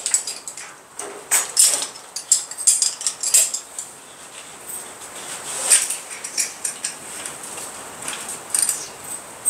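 Metal harness hardware of a backplate BCD (D-rings and buckle) clinking and rattling in irregular light clicks as the waist and crotch straps are handled and fastened.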